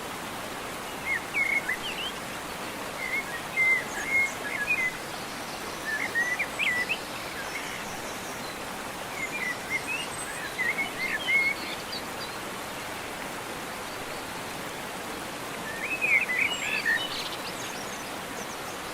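Songbirds chirping in short flurries every few seconds over a steady hiss of rushing water, as from a stream or waterfall.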